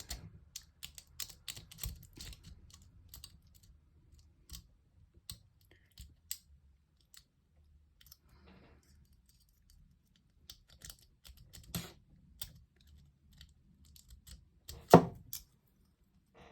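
A lock being picked: small metallic clicks and scrapes of a half-diamond pick working the pins in the keyway, irregular and scattered, with one sharp louder click about fifteen seconds in.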